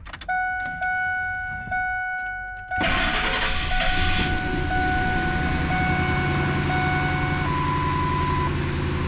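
The truck's dashboard warning chime dings repeatedly. About three seconds in, the turbocharged 5.4-litre Triton V8 of a 2003 Ford F-150 cranks and catches, then settles into a steady idle while the chime keeps sounding. This is the first start on a fresh oil fill.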